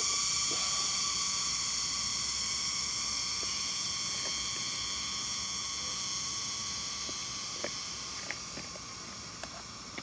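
Steady, high-pitched insect chorus in forest, slowly fading, with a few light clicks near the end.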